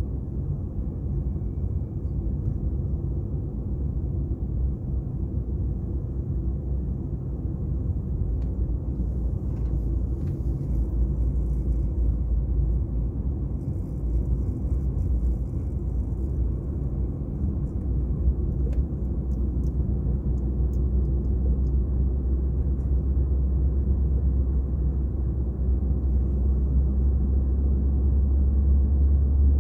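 Low, steady rumble of a car's engine and tyres heard from inside the cabin while driving on a highway, growing a little louder near the end.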